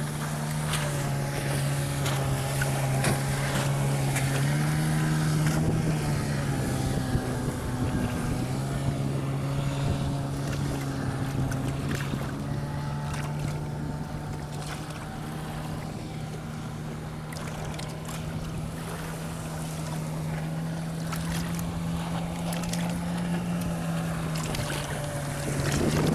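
A small outboard motor running steadily at speed, its note shifting slightly in pitch about five and eight seconds in. Wind buffets the microphone and water splashes against a hull.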